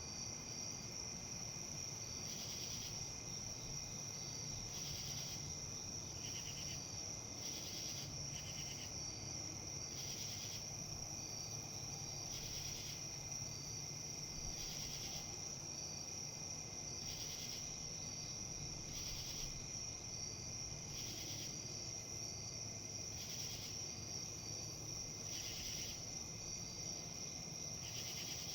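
Insects chirping in a steady high chorus, with a second call pulsing about every two seconds, over a low steady background rumble.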